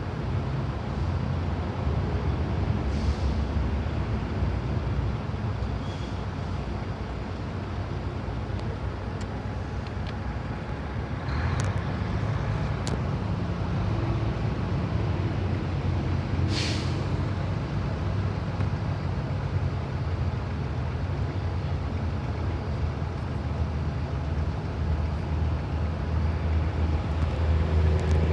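Engines of heavy vehicles rumbling steadily in a slow highway traffic queue, a low drone that swells a little near the end. About two-thirds of the way in comes a short hiss of an air brake.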